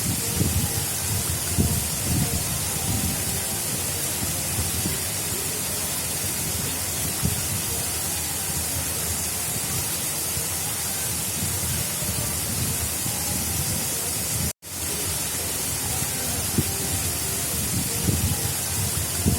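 Water of an artificial river flowing steadily: a continuous rushing with an uneven low burble beneath. The sound cuts out for an instant about two thirds of the way through.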